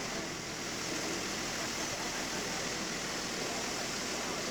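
Forklift engine running steadily under a constant rushing hiss.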